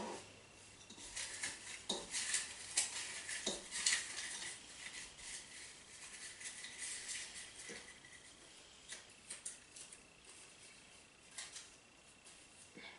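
Folded paper slips rustling and lightly clicking against a small bowl as a hand rummages through them, a dense run of crinkles over the first few seconds, then sparser crinkles as one slip is picked out and unfolded.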